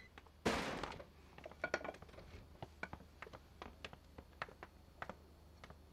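Footsteps on a hard floor, a string of irregular sharp taps over about four seconds, after a short rush of noise about half a second in.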